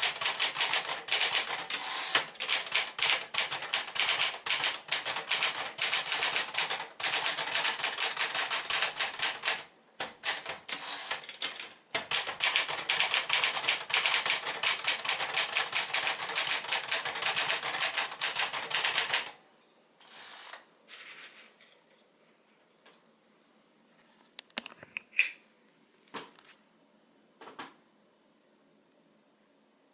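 Sears Citation manual typewriter (a reskinned Smith-Corona Galaxie) typed on at a rapid, steady pace: a dense run of key and typebar clacks, with short breaks about ten and twelve seconds in. The typing stops a little past halfway, and a few faint clicks and knocks follow.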